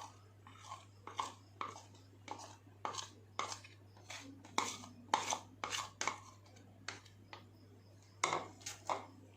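Irregular clicks and scrapes of kitchen utensils against dishes, about one or two a second, over a steady low hum.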